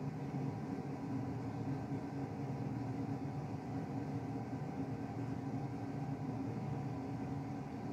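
Steady machine hum: a low rumble with several faint held tones over it.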